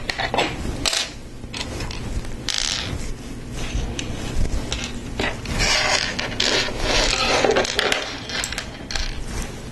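Plastic Lego Technic parts handled and fitted together: rubbing, scraping and clicking of pieces in a few short bursts, the longest and loudest from about five and a half to eight seconds in.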